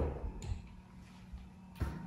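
Power reclining leather sofa shifting under a reclining person: a soft knock, a sharp click about half a second in, and another knock near the end, after which a faint low hum sets in.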